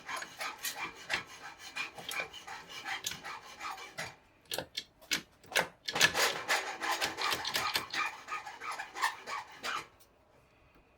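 Hand-tool work rasping and scraping in quick, irregular strokes, with a brief pause about four seconds in, stopping near the end.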